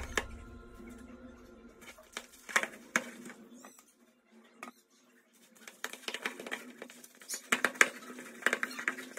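Hands kneading soft, sticky butternut chapati dough in a plastic bowl: wet slapping and squelching with light knocks of the bowl, a short pause, then a quick run of kneading strokes. Background music fades out at the start.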